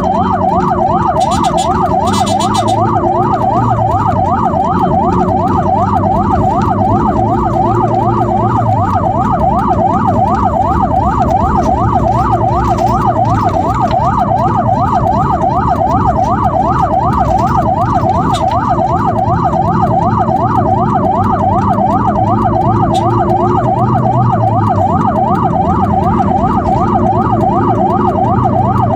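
Ambulance siren in a fast yelp, sweeping up and down about three times a second without a break, over the rumble of the moving vehicle.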